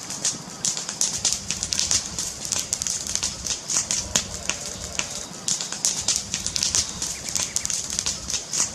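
Fire crackling: a dense run of irregular pops and snaps over a steady hiss and low rumble.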